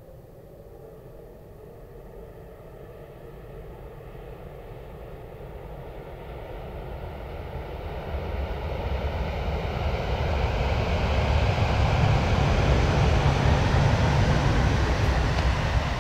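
E956 ALFA-X Shinkansen test train passing on an elevated viaduct at about 336 km/h: a rushing noise that builds steadily as it approaches, is loudest about three-quarters of the way in, and starts to fall away near the end.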